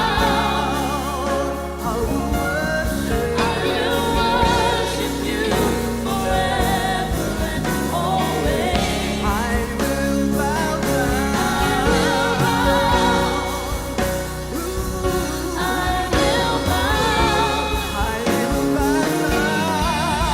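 Gospel worship song performed live: voices singing with vibrato over a band with a steady bass line.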